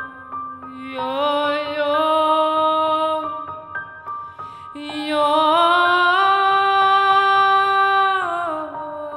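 A woman singing long held notes over grand piano accompaniment, in two phrases: the first starts about a second in, the second starts about five seconds in, climbs higher and is louder, then slides down near the end.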